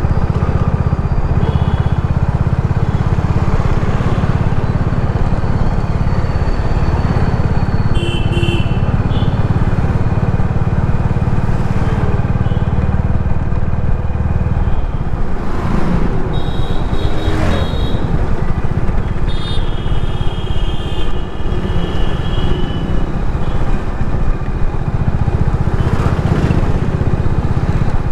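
Road noise from a drive through city traffic: a steady, loud low rumble of vehicle and road, with short horn honks from other vehicles several times and a couple of vehicles sweeping past about halfway through.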